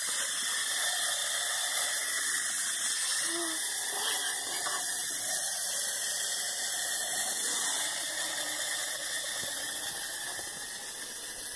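Clockwork motor of a wind-up toy pirate ship whirring steadily as the ship runs along a track, growing gradually quieter over the last few seconds as the spring unwinds.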